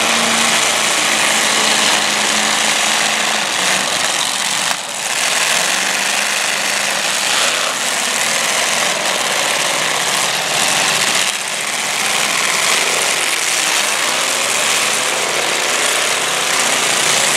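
Several demolition derby cars' engines running and revving together, with occasional crunching impacts as the cars ram each other.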